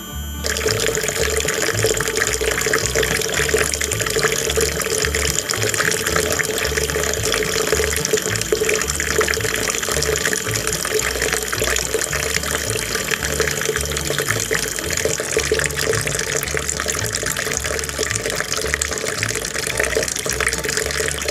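A thin stream of water from a small tube pouring and splashing into a shallow pool of water. It starts about half a second in and runs steadily.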